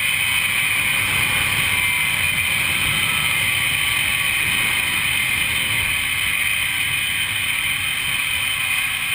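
Steady rush of wind on a GoPro's microphone as a rider speeds down a zip line, with a steady high hum from the trolley running along the cable. It eases a little near the end as the ride slows toward the landing.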